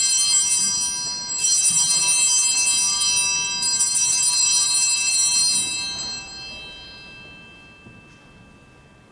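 Altar bells ringing at the elevation of the chalice, marking the consecration: a bright chiming that is rung again about one and a half seconds in, then dies away over several seconds.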